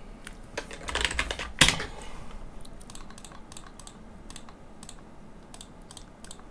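Computer keyboard typing in a quick run of keystrokes, followed by a series of separate clicks spaced a fraction of a second to a second apart, typical of mouse clicks.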